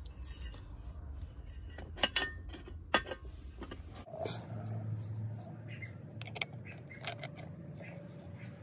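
A few sharp metal clinks and taps from handling a cut-open stock Yamaha R6 muffler canister and its inner tube, the loudest about two and three seconds in.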